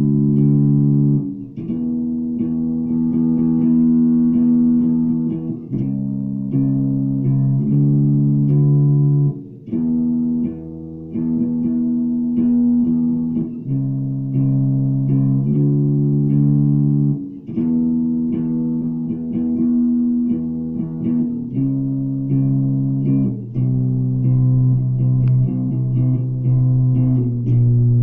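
Four-string Ibanez electric bass guitar played slowly: held notes, often several ringing together, changing about every one to two seconds. It is recorded through a phone's microphone, which gives it a thin, poor sound.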